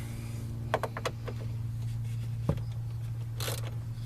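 Metal hand tools clicking and tapping as a socket is picked out and fitted to a ratchet. There are a few sharp clicks about a second in, a single knock halfway through and a short rustle near the end, over a steady low hum.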